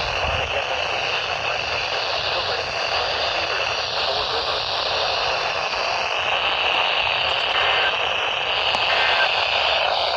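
Steady static hiss from a weather radio receiver tuned to a weak, distant NOAA Weather Radio signal.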